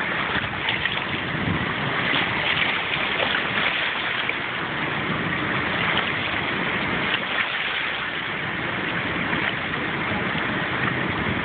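Water rushing and churning out through the open gates of a dam spillway, a steady, unbroken rush of turbulent water.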